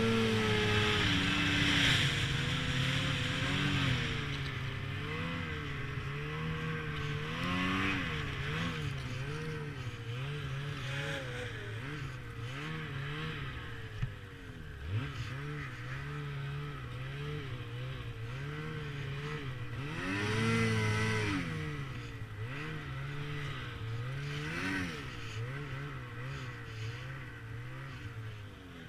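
Snowmobile engine running under way, its pitch rising and falling as the throttle is worked, with louder surges in the first few seconds and again about two-thirds of the way through. A couple of brief knocks come about halfway in.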